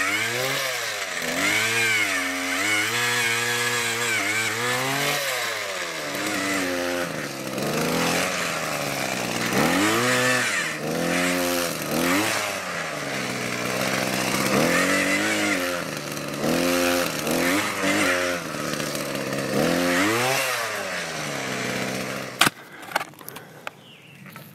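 Gas-powered post-hole auger's small engine revving up and falling back over and over as it bores into the ground. It stops near the end, followed by a few sharp knocks.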